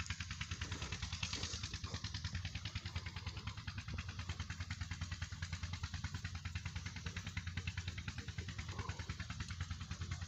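Stationary diesel engine running steadily, with an even beat of about seven pulses a second.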